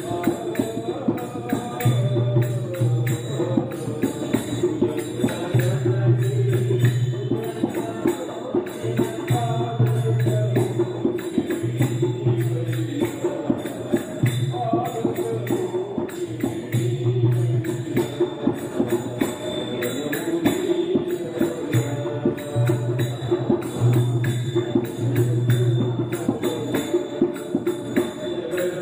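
Background music: a singing voice over a quick, steady percussion beat, with a low note that comes and goes every second or two.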